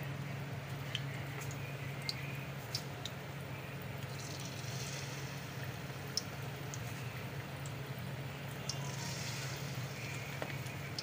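Batter-coated potato fries deep-frying in hot oil in a kadhai: a steady sizzle with scattered sharp pops and crackles. A steady low hum runs underneath.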